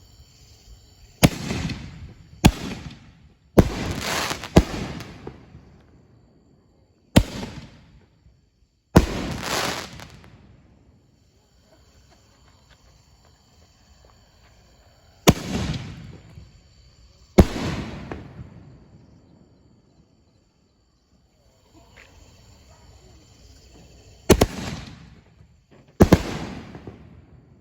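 Excalibur Platinum 5-inch canister shells firing from mortar tubes and bursting: about ten sharp booms, some in quick pairs, each trailing off in a rolling echo. Crickets chirp faintly in the gaps.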